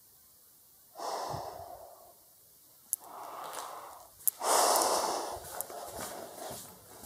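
A person breathing heavily close to the microphone: three loud breaths about a second and a half apart, the third the loudest, with two sharp clicks between them.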